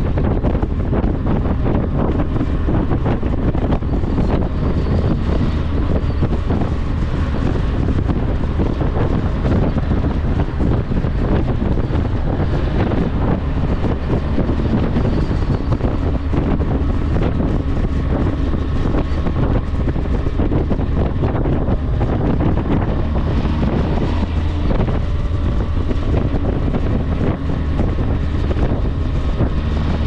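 Strong gusty wind buffeting the microphone of a moving vehicle: a loud, steady low rumble with faint steady tones underneath.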